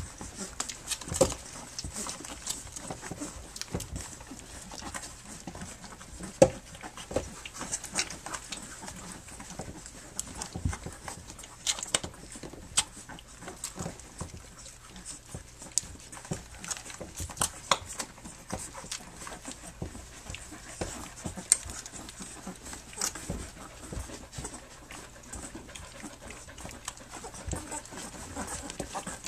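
Three-week-old Standard Schnauzer puppies suckling: irregular wet smacking and clicking sounds throughout, with small puppy noises among them.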